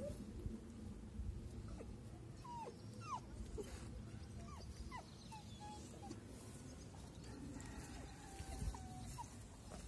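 Puppy whimpering: a string of short high whines, each falling in pitch, through the middle, then a longer held whine near the end.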